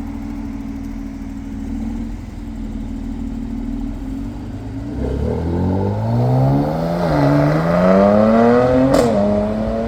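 Mercedes-AMG 43 engine running steadily, then accelerating hard from about five seconds in, its pitch climbing. The pitch dips briefly at an upshift about seven seconds in, climbs again, and falls away after a sharp crack near nine seconds.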